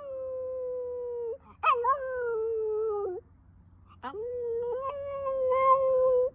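Corgi–Chihuahua mix dog howling: three drawn-out howls in a row, each opening with a short yelping rise and then held at a fairly steady pitch, the middle one sagging slightly toward its end.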